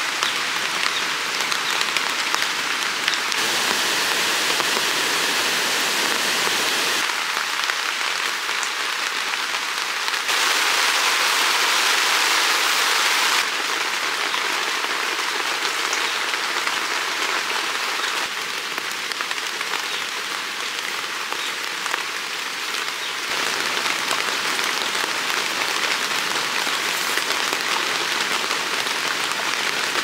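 Steady rain falling on a campsite and on tent fabric. The rain noise jumps in loudness and brightness every few seconds as one recording cuts to the next, loudest from about ten to thirteen seconds in.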